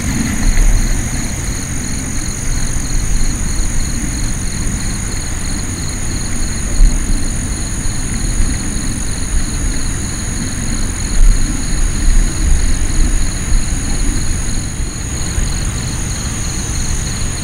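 Night insects chirring in steady high-pitched drones, one of them pulsing rapidly, over a steady low rumble with a few low thumps.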